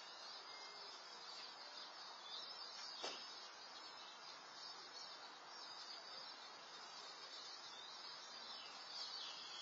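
Faint outdoor ambience through a Nest security camera's microphone: a steady hiss with faint high chirping, and one sharp click about three seconds in.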